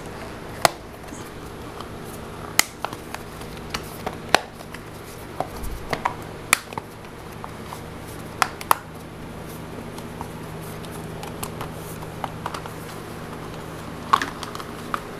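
Sharp, irregular clicks and taps of wiring and plastic parts being handled on a Harley-Davidson Road Glide's frame, over a steady low hum.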